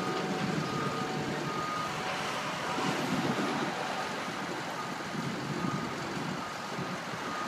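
DSNY street sweeper's engine running at a steady pitch with its hopper raised for dumping, while a backup alarm beeps about once a second.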